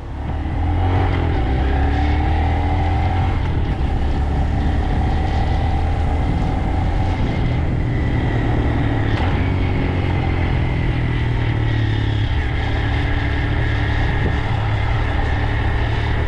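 A vehicle engine running steadily, an even low-pitched drone that holds without revving.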